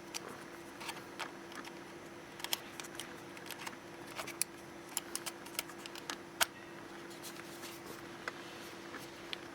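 Irregular light clicks and taps of the camera and its packaging being handled, the sharpest click about six seconds in, over a steady faint hum.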